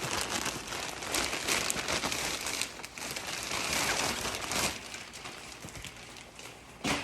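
Packaging crinkling and rustling as it is handled, fading out after about five seconds, with a short bump near the end.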